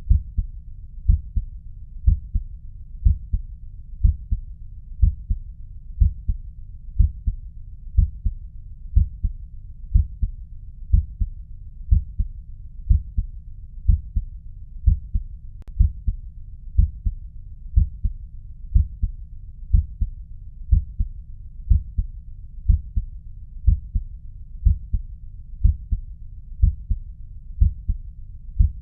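Normal first and second heart sounds (S1 and S2) heard through a stethoscope: a steady, low-pitched lub-dub about once a second, the pattern of a normal heart.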